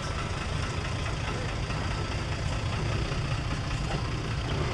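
Large diesel truck engine idling steadily with a low rumble.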